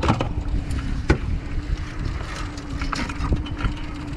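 Wind buffeting the microphone on an inflatable boat in choppy water, with a steady low hum underneath. A few sharp clicks and knocks come from crabs being handled in a wire crab trap: one at the start, one about a second in, and two around three seconds in.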